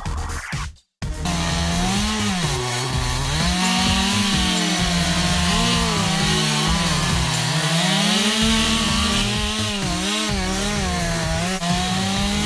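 Two-stroke chainsaw cutting through lake ice, its engine pitch rising and falling as the bar loads and frees in the cut. It starts after a brief dropout about a second in.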